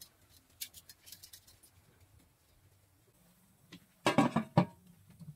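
A domed aluminium steamer lid is set down on its pot with a clattering metal clank and a short ring, about four seconds in. Before it come a few faint light clicks.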